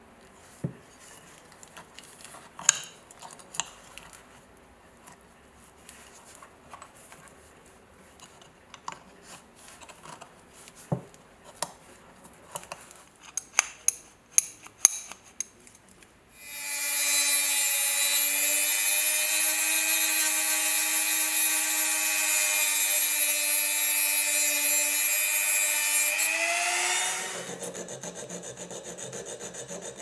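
Scattered light clicks and taps of a metal buckle being handled, then a small high-speed rotary tool runs with a steady high whine for about ten seconds, its bit held against a bar of green polishing compound. The whine rises briefly and stops, and a needle file starts rasping on the buckle's metal edge.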